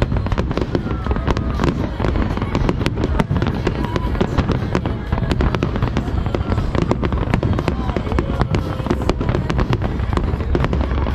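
Aerial fireworks going off in a dense, unbroken run of sharp cracks and bangs over a deep rumble.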